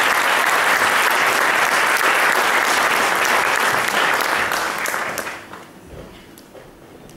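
Audience applauding steadily, then dying away after about five seconds.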